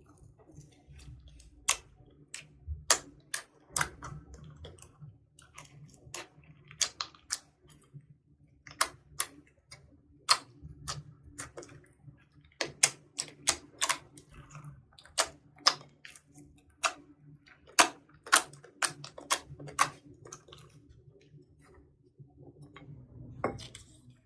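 Slime being pressed, stretched and folded by hand, giving sharp irregular pops and clicks as air pockets burst, one or two a second and sometimes bunched close together.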